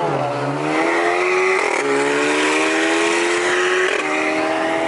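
A car accelerating hard, its engine and exhaust revving up through the gears: the pitch climbs steadily and drops at two upshifts, one a little under two seconds in and one about four seconds in, over steady road and wind noise.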